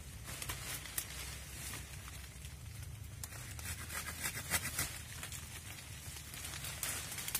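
Coffee-tree branches and leaves rustling, with irregular sharp cracks and scrapes as branches are cut and pulled out during pruning. The cracks come thickest in the middle and again near the end.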